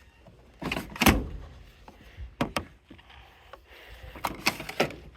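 Irregular knocks and clunks of something being handled, the loudest a heavy thud about a second in.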